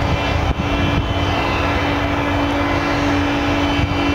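Steady engine rumble with a continuous hum over it.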